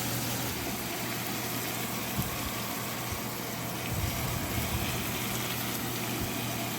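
Onion, chili paste and tomato frying in oil in a pan, a steady sizzling hiss with a low hum under it and a few soft low knocks.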